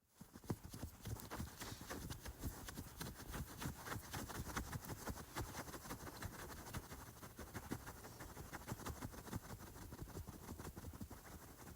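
Faint, continuous clattering sound effect: a dense, irregular run of small knocks.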